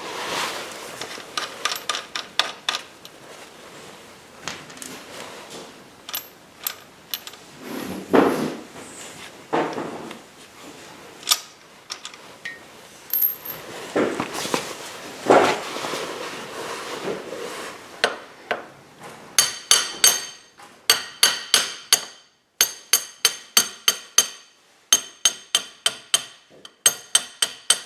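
Metal tools and parts clinking and clanking, then, from about two-thirds of the way in, quick runs of hammer blows on a metal rod driving the front axle out of a Kawasaki Ninja 300's wheel, each strike ringing, about four or five a second in short bursts.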